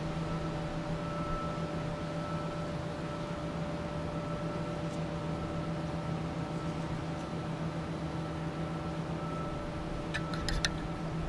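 A steady, unchanging machine hum made of several pitched tones, with a quick cluster of light clicks about ten seconds in.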